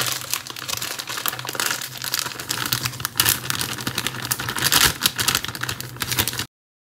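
A crinkly sachet of bun mix being shaken and squeezed as its dry mix is tipped out into a bowl: a dense, rapid crinkling and crackling that cuts off suddenly near the end.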